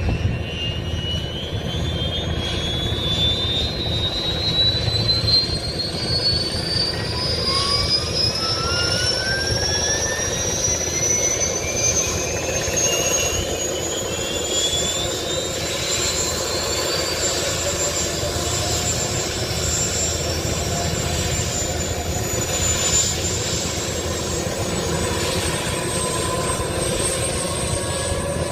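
Bell 205 helicopter's Lycoming T53 turboshaft running, its turbine whine climbing steadily in pitch for about fifteen seconds and then holding high, over a steady low rumble.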